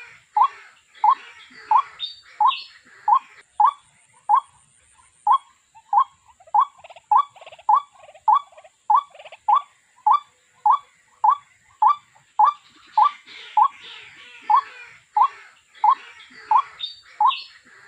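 A rail, the kind of waterbird this trapping targets, calling over and over: a short rising note about every half second at a steady pace, with faint hissing sound between the notes near the start and end.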